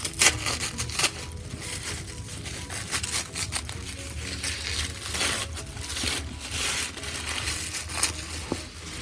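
Tissue paper crinkling and rustling as it is pulled and unwrapped from around a doll, a dense string of irregular crackles.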